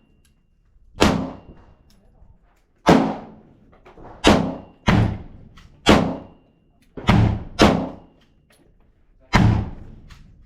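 Handgun shots fired one at a time: eight sharp reports at an uneven pace, roughly one a second, each followed by a short echoing decay.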